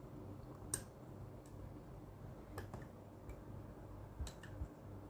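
Faint, irregular small metallic clicks from a picking tool working inside a Master combination padlock, with one sharper click about three quarters of a second in.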